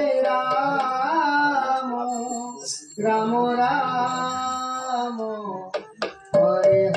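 Harmonium played with singing voices in a devotional kirtan: two long held phrases, then a few sharp clicks near the end before the harmonium and singing start again.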